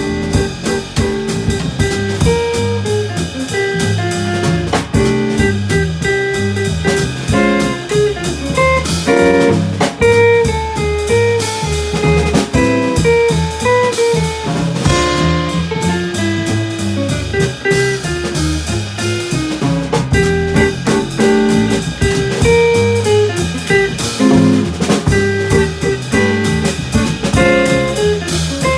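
A small jazz band with guitar, bass and drum kit playing a tune, starting straight off the count.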